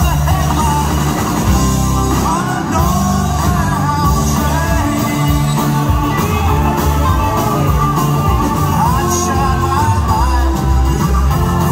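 A live rock band playing loud in a large hall, heard from among the audience, with steady drums and bass under the melody.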